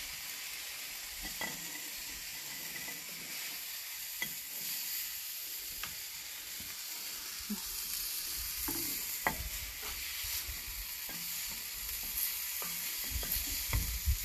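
Chicken fajita mix sizzling steadily on a hot kamado half-moon griddle plate, with scattered scrapes and taps of a wooden spatula as the food is scooped off into a bowl.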